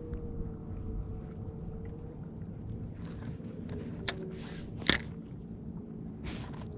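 A boat's motor running steadily at low speed, a hum with a faint whine that drops slightly in pitch over the first couple of seconds. Two sharp clicks cut in about four and five seconds in, the second the loudest.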